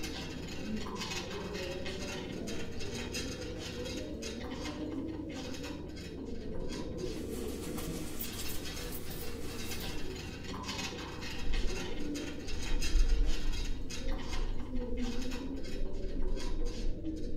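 Hospital-room ambience, muffled as if heard through a door: repeated light clinking of dishes and metal utensils over a low, indistinct rumble. A brief hiss comes in the middle, and a heavier low rumble rises about twelve seconds in.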